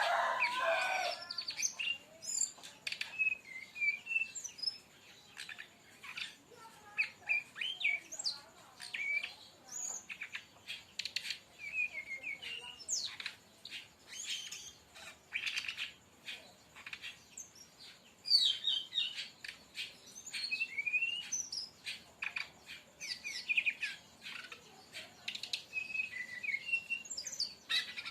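Brown-chested jungle flycatcher singing a fast, varied run of short chirps, clicks and quick sliding whistled notes with hardly a pause: the rapid-fire 'tembakan' song.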